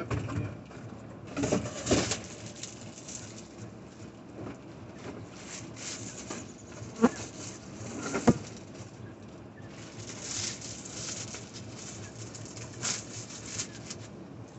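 Plastic bag wrapped around a printer crinkling and rustling in bursts as it is handled, with two sharp knocks about a second apart near the middle.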